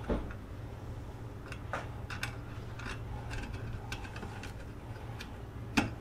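Small metal clicks and taps as the old garage door safety-sensor bracket is worked loose by hand from the door track, with a sharper knock at the start and a louder one near the end.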